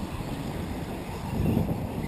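Wind buffeting the microphone: a low, gusty rumble that swells about one and a half seconds in.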